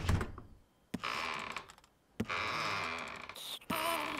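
Cartoon sound effects: a heavy thud right at the start, then three separate stretches of creaking noise, each opening with a click, with short pauses between, as of a character sneaking in noisily.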